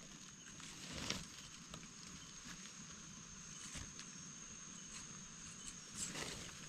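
Faint scraping and rustling of soil and leaf litter as a gloved hand digs a mushroom out of the ground, with a louder scrape about a second in and another near the end. A steady high-pitched insect drone runs underneath.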